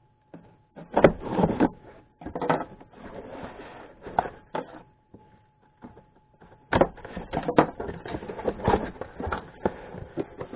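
A cardboard box being opened and its contents handled: irregular rustling and scraping with sharp clicks and knocks, coming in several bunches with short pauses between them.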